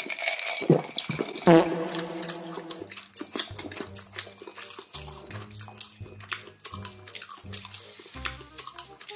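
A man gulping water from a glass mug, with light background music that settles into a slow, regular beat.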